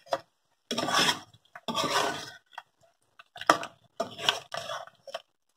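Metal ladle scraping and clinking against a metal pot while stirring chicken pieces through thick masala: short scrapes and sharp clicks, separated by silences.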